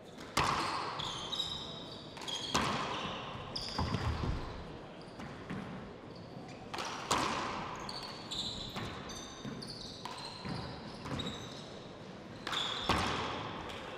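A 40x20 handball rally: the rubber ball smacks sharply off the hand, the front wall and the wooden floor every second or two, each hit echoing round the hall. Short high squeaks from the players' shoes on the wooden floor come between the hits.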